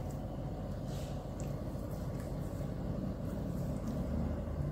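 A steady low hum of background noise, with a few faint light taps of a kitchen knife on a wooden cutting board as raw chicken breast is scored.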